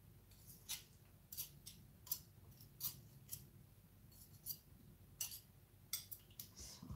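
A metal utensil scraping and tapping against a mixer's wire beaters to knock cookie dough off them: a string of faint, irregular metallic clicks and scrapes, about a dozen.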